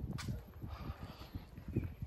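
Footsteps of a person walking on paving, irregular soft thuds over a low rumble on the microphone.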